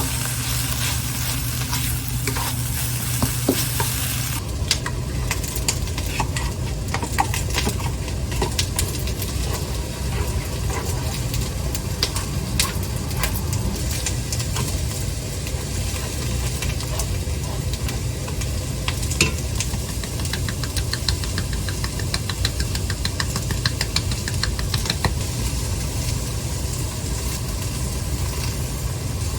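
Food sizzling in a frying pan while being stirred and scraped with a spatula, with many short clicks and scrapes and a steady low hum underneath.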